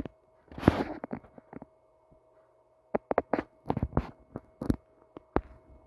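A short rustle, then a run of sharp clicks and taps, about a dozen, mostly in the second half, over a faint steady hum.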